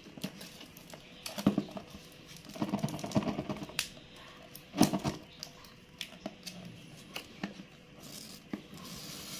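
A cardboard smartphone box being turned over and handled by hand: irregular clicks, scrapes and taps, with a few louder knocks, the loudest about halfway through.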